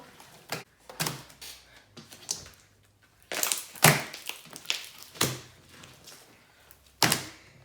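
Hair gel slime being worked by hand: irregular sticky clicks and snaps, a few louder ones, as it is squeezed and stretched and air pockets in it pop.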